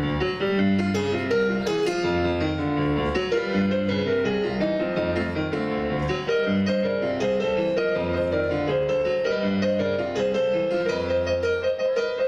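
Solo piano playing an instrumental passage between sung verses: bass notes repeating in a steady rhythm under chords and a melody line.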